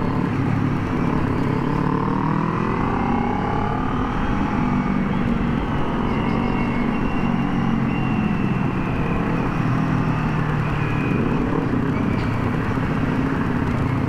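Motorcycle engine running through an aftermarket exhaust pipe while riding, rising in pitch as the throttle opens and then holding a fairly steady cruise with small rises and falls.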